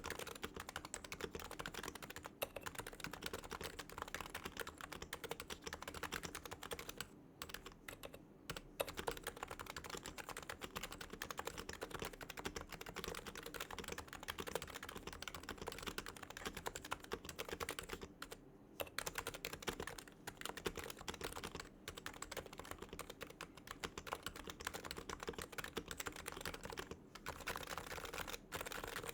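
Fast continuous typing on a Realforce TKL R2 keyboard with silenced 45 g Topre electro-capacitive switches, giving soft, muted keystrokes, with brief pauses twice.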